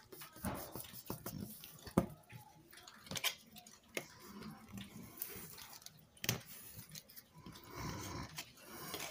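Paper and cardstock being handled and pressed down by hand on a cutting mat: soft rustling and rubbing with a few sharp taps and clicks.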